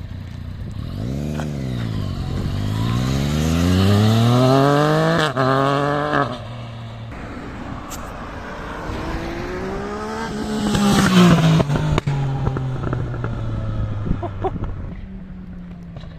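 Yamaha MT-09's three-cylinder engine through a full Akrapovič exhaust, revving: a quick blip soon after the start, then a long climb in revs that drops off sharply, and past the middle another rise and fall before it settles to a steady idle.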